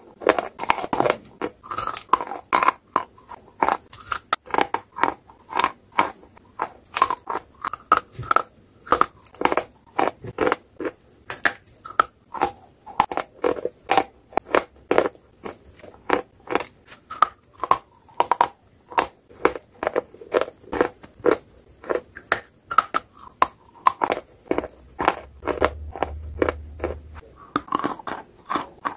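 A person biting and chewing sticks of stationery chalk close to the microphone: a rapid series of sharp, dry crunches, about two a second.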